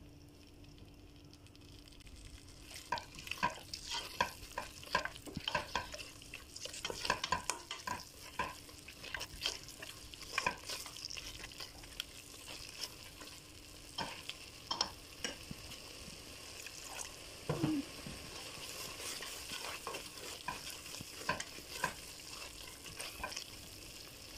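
A spatula stirring a thick tomato-paste and shredded-chicken sauce in a stainless steel pot, with irregular scrapes and taps against the pot, over a steady sizzle from the heated sauce.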